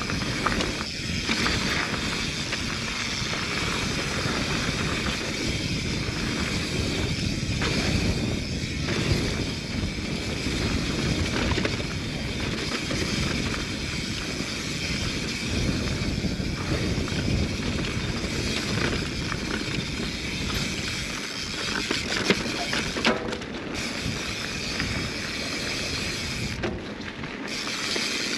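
Mountain bike riding down a dirt singletrack: a steady rush of wind and tyre noise with rattles and knocks from the bike over the rough trail, including a couple of sharp knocks about three quarters of the way through.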